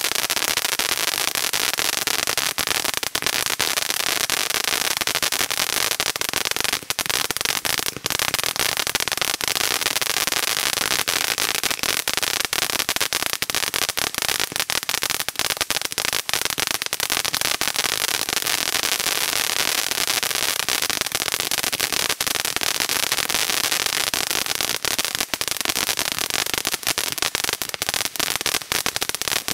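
Zeus Fireworks Mystic Fountain ground fountain burning steadily: a continuous hiss of spraying sparks with dense crackling throughout.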